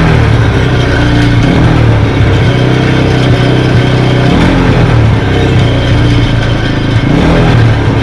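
TVS Apache RTR 160's single-cylinder engine running and being revved a few times, with a rattling 'khatar khatar' from the exhaust. The rattle comes from the silencer, whose inner mesh baffle has come loose and knocks about inside.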